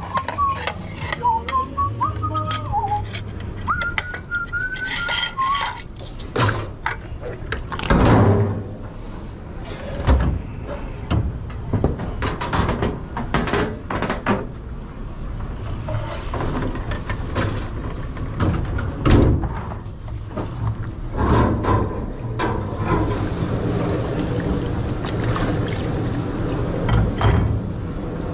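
Someone whistles a wandering tune for the first few seconds. Then comes dishwashing in a kitchen wash-up: plates, pans and utensils clattering and knocking in irregular strokes over a steady low machine hum. A steadier hiss joins from about halfway.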